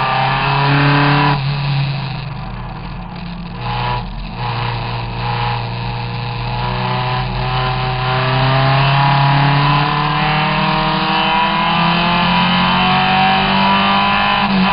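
Onboard sound of the Triumph TR3S Tribute race car's four-cylinder engine at racing speed. The note drops away and quietens about a second and a half in, with a brief blip near four seconds, then climbs steadily in pitch as the car pulls out of the corner, falling sharply at the very end.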